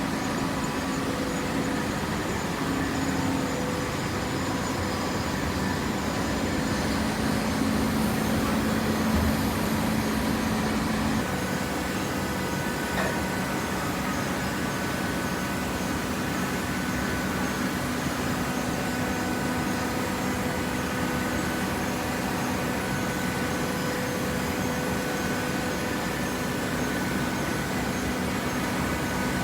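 Automatic hydraulic waste paper baler running: a steady machine hum with several constant tones, slightly louder for a few seconds before its tone shifts about eleven seconds in.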